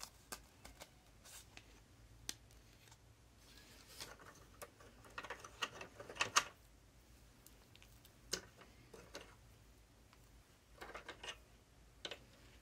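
Faint, scattered small clicks and light rattles of thread spools being handled and lifted off the pegs of a plastic sewing case, with brief rustles. The clicks bunch together about halfway through and again near the end.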